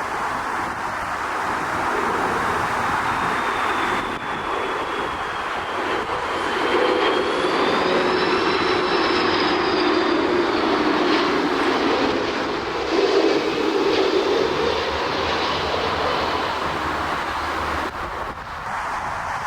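Airbus A330 jet engines passing on a landing approach: a steady jet roar with a high engine whine that rises and then falls in pitch, loudest around the middle.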